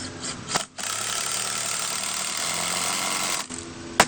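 A power tool runs steadily for about two and a half seconds, starting and stopping abruptly. Two sharp knocks follow near the end.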